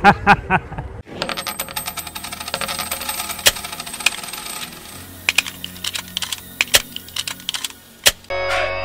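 Logo-intro sound effect: a rapid, irregular run of sharp clicks and ticks over faint high steady tones. Electronic music starts near the end.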